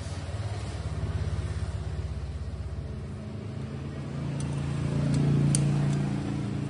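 A motor vehicle engine running close by, a low pulsing hum that swells louder around five seconds in and then eases off, with a couple of faint light clicks over it.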